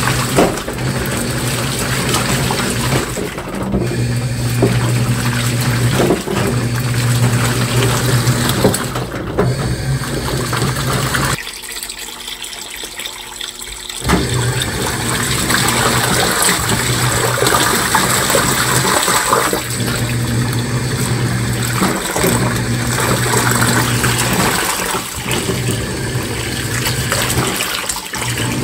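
Washing machine mid-wash: water churning and sloshing with the clothes, over a low motor hum that runs in stretches of a few seconds with short breaks. About eleven seconds in, the motor and churning stop for two or three seconds, then start again.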